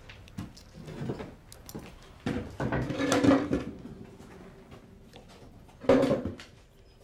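Wooden chair legs scraping across the floor: a longer scrape about two seconds in and a shorter one near the end, among light clinks of crockery and cutlery on the table.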